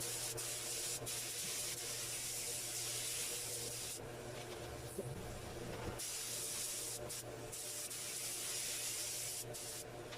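Compressed-air paint spray gun hissing as base coat is sprayed, in long passes broken by short pauses where the trigger is let off, the longest about four seconds in.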